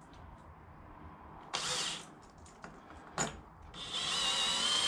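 Electric drill running with a steady high whine from about four seconds in, after a short burst of noise and a sharp click.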